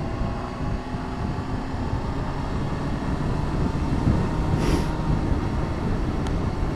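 Motorcycle engine running under way with wind and road noise; its note dips slightly at first, then holds steady and rises a little. A short hiss comes about two-thirds of the way through.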